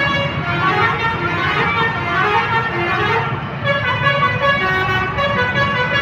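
Multi-tone 'telolet' musical horn on a Mercedes-Benz 1626 bus playing a tune of held notes that step from pitch to pitch, with some gliding notes a second or two in. The bus's engine runs low underneath.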